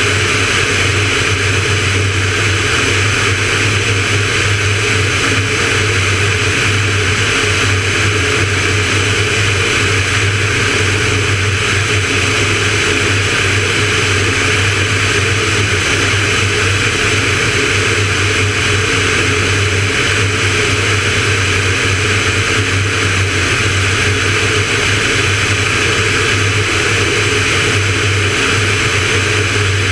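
Van's RV-9A light aircraft's piston engine and propeller droning steadily in cruise flight, with a constant rushing hiss of airflow over it.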